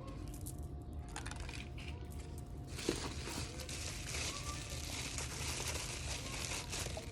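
Packaging being crinkled and handled by hand: a few light rustles, then dense, continuous crinkling from about three seconds in.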